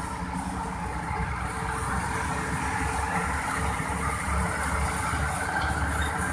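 Volvo EC480DL excavator's diesel engine running steadily.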